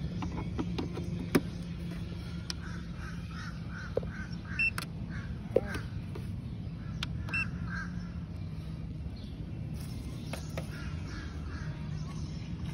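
A few sharp clicks as a power plug is handled and pushed into a portable power station's outlet, over a steady low hum. A bird calls in short runs of quick repeated notes several times.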